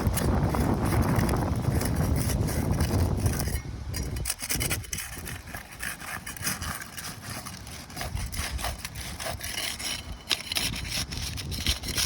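Rough, irregular scraping and rubbing of a tool working against asphalt roof shingles, with low wind rumble on the microphone for the first few seconds.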